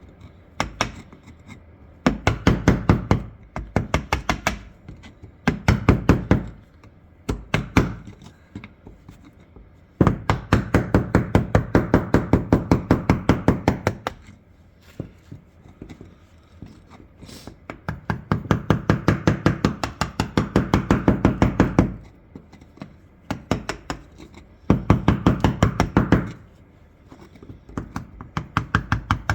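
Rapid, even tapping strikes on metal, about seven a second, in runs of one to four seconds with short pauses between: a tool chipping a hard rust crust off the steel of an old shotgun.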